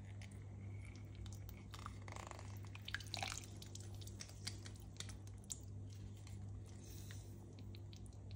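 Lemon juice squeezed from a hand citrus press dripping into a pot of thick, simmering jam, with scattered small wet ticks and pops. A few louder squelches come around two to three seconds in, over a steady low hum.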